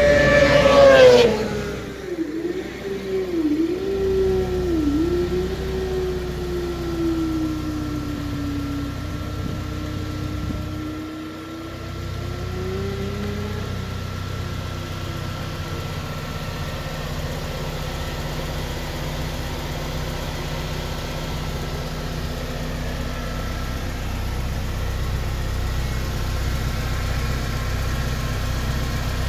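K20-swapped Honda Civic EG's 2.0-litre four-cylinder engine revving high, the revs falling away sharply about a second in, then idling steadily with a faint thin whine over it.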